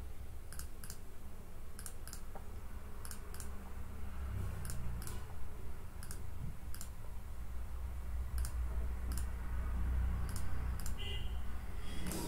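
Irregular sharp clicks, a few a second with short pauses, from working the computer to get a digital pen that has stopped writing going again, over a low steady hum.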